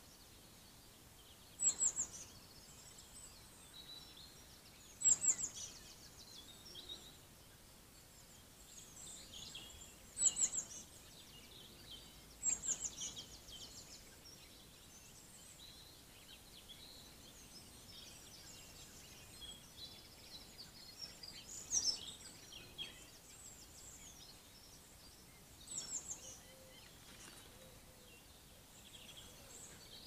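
A songbird repeating a short, high, descending song phrase six times at irregular intervals, over fainter twittering from other birds.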